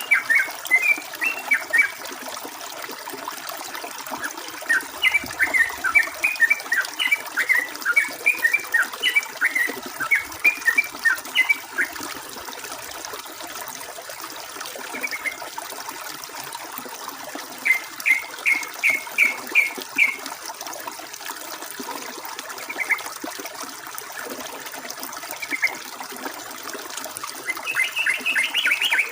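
Yellow-vented bulbul (trucukan) singing in bursts of short, quick chattering notes, with a run of about six even notes partway through and a denser burst near the end, over steady trickling running water.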